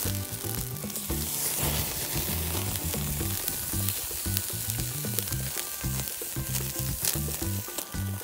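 Thick beef steak sizzling steadily on a wire grill net over a charcoal fire. Background music with a rhythmic bass line plays under it.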